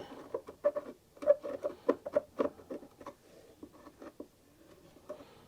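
Screwdriver tip scraping and clicking against a small screw head as it hunts for the slot ground into it. The clicks are light and irregular, thicker in the first three seconds and sparser after.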